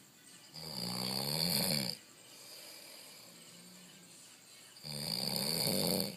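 A sleeping person snoring loudly: two long, rasping snores about four seconds apart, each over a second long, with quieter breathing between them.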